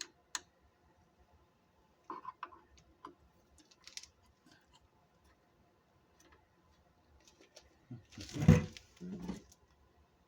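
Hand work on a Jeep Cherokee's front headlight mounting: scattered small clicks and taps of plastic and metal parts being handled and fitted, with one louder clatter about eight seconds in.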